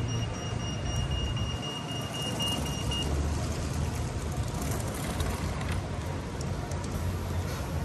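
Town-centre road traffic on wet streets: a steady low rumble of buses and cars with tyre hiss. A thin, steady high tone runs alongside and cuts off about three seconds in.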